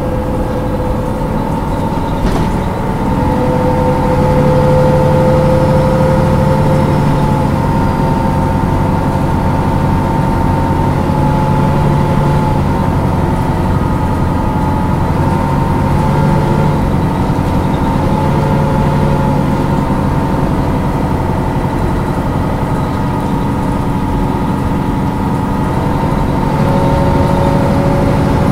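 Diesel engine of a MAN A23 NG313 articulated bus running steadily, with a steady drone and a whine on top. It grows louder about four seconds in and then holds an even level, with a low hum swelling and fading.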